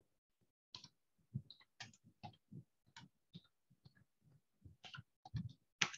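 Computer keyboard keys being typed, about a dozen separate, uneven clicks, with the loudest one near the end.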